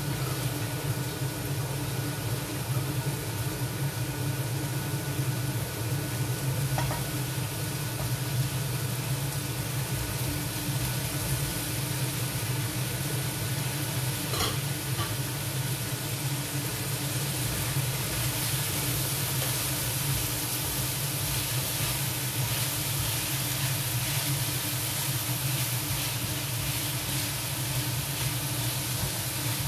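Cubed chicken, potatoes and carrots sizzling as they fry in a wok, over a steady low hum. There are a couple of light knocks in the first half, the sizzle grows brighter in the second half, and a wooden spatula stirs the pan near the end.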